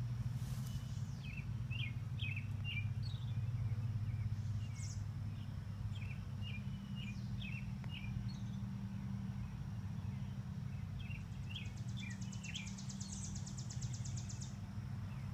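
Small birds chirping in short scattered notes over a steady low hum. From about eleven seconds in, a fast high-pitched trill runs for about three seconds.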